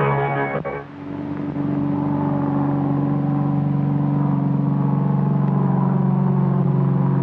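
Music ends about a second in, giving way to the steady drone of a small propeller aircraft's engine.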